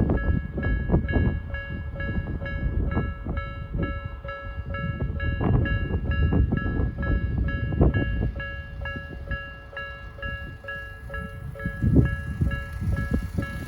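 Japanese level-crossing warning bell, the electronic Nikko-type alarm, ringing a steady quick ding-ding. Under it a train rumbles over the crossing, with occasional heavy thuds of wheels over rail joints.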